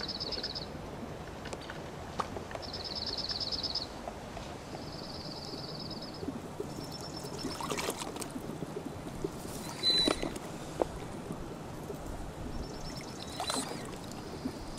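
Water bottle with a pre-filter held down in a small creek and filling, with water splashing and gurgling in a few short bursts, the loudest about ten seconds in. A high, fast trill about a second long repeats several times in the background.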